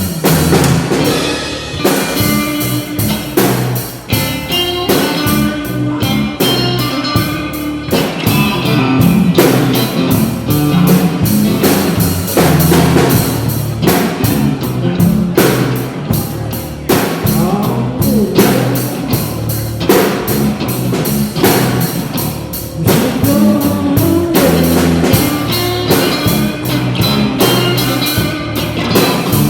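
Rock band playing, with a drum kit keeping a steady beat under guitar.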